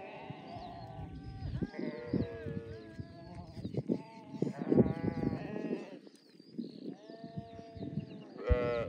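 A flock of sheep bleating, many calls overlapping throughout.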